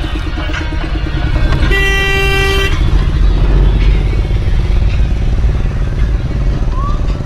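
Engine and road rumble heard from inside a small vehicle's cab while driving, with a horn honking once for about a second, about two seconds in.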